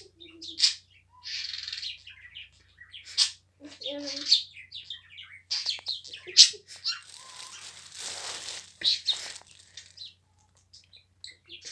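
Pet bird chirping in many short, high calls, with a longer rasping, hissy stretch from about seven to nine and a half seconds in.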